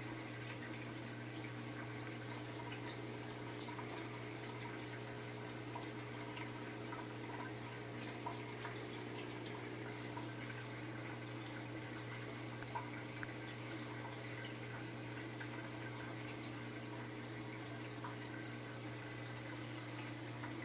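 Aquarium filter and pump running: steady trickling water over a constant low hum.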